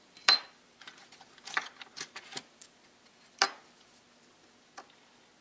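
Small tools and parts handled on a hobby workbench covered with a clear plastic sheet: a metal hobby knife and strips of model fence. There is a sharp click about a third of a second in, a run of lighter taps and rustles around two seconds in, and another sharp click about three and a half seconds in.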